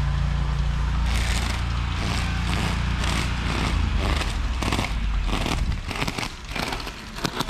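Two-stroke motorized bicycle engine running as a low, steady rumble, with rough crunching and crackling over it; the engine rumble drops away about six seconds in.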